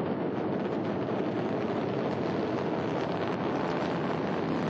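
Ariane 5 rocket at liftoff, its solid boosters and main engine making a steady, even rumbling noise as it climbs.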